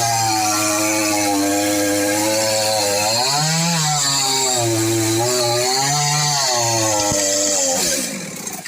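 Chainsaw cutting through a tree trunk, its engine pitch dipping and picking up again several times as the chain loads in the cut. Near the end the engine speed falls away and it quiets.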